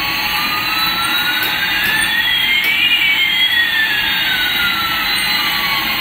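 Electric toy Airbus A380 plane's built-in jet engine sound effect through its small speaker: a steady jet hiss with two whines, one rising and one falling, that cross about three seconds in.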